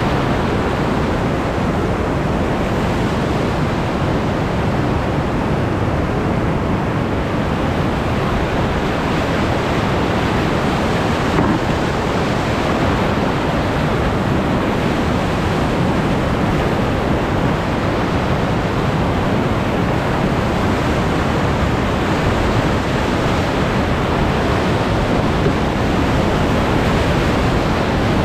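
Whitewater rapids rushing, heard up close from aboard a raft running them: a loud, steady wash of churning water with no let-up.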